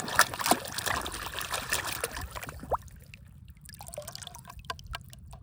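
Water splashing and trickling, loudest in the first half and dying down about three seconds in, followed by a few light clicks.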